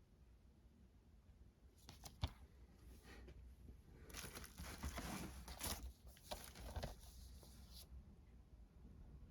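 Faint rustling and tearing of packaging being handled, with a sharp click about two seconds in. It goes on for about six seconds, then stops.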